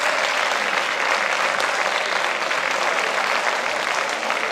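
Theatre audience applauding, many hands clapping at a steady level throughout.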